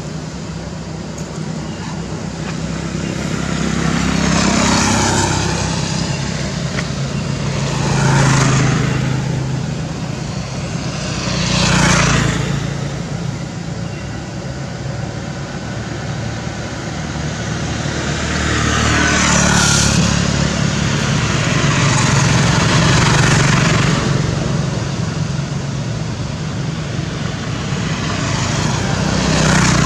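Road traffic: several vehicles pass one after another, each swelling up and fading away, over a steady low engine hum.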